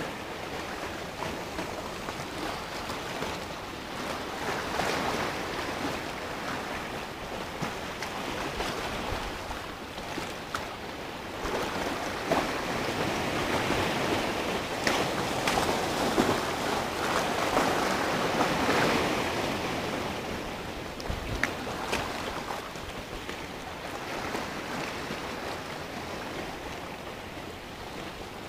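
Sea surf breaking and washing over low coastal rocks, a steady rushing that swells louder for several seconds around the middle and then eases off.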